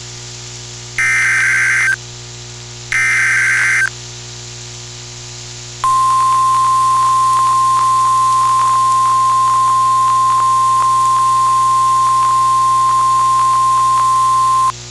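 NOAA Weather Radio Specific Area Message Encoding (SAME) alert over radio hiss: two one-second buzzy digital data bursts of the header, then after a short pause the steady 1050 Hz warning alarm tone for about nine seconds, flecked with faint static crackles. This is the alert that opens a new tornado warning broadcast.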